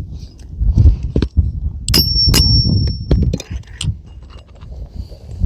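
Light metal-on-metal strikes of a hammer on roofing nails, several taps, with one clink about two seconds in that rings for about a second, over a low rumble.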